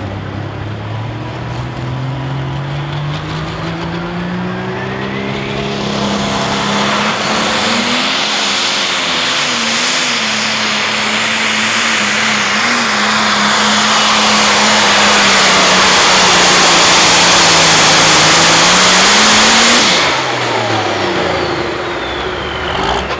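International pro stock pulling tractor's turbocharged diesel engine at full throttle, pulling the sled. Its pitch climbs over the first several seconds and then holds, under a hiss that builds to the loudest point. About twenty seconds in, the throttle comes off at the end of the pull: the engine note falls away and a high whine winds down.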